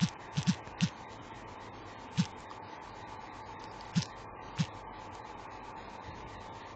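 Fingertip taps on a phone's touchscreen keyboard while typing: a few quick taps in the first second, one more about two seconds in and two around four seconds in, over a faint steady hum.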